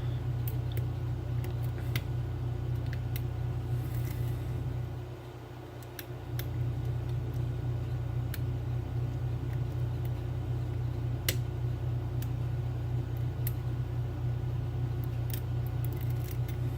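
Light, scattered clicks and ticks of a pick working the pins of a 7-pin Trioving oval lock, over a steady low hum that drops out for about a second around five seconds in.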